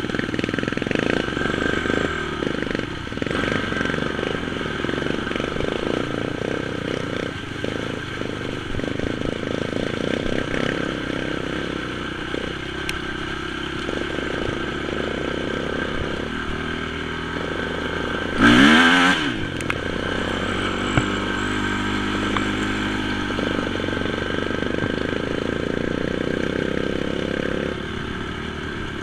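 Honda TRX450 quad's single-cylinder four-stroke engine running as it is ridden, heard from on board, with one short, sharp rev about two-thirds of the way through that is the loudest moment.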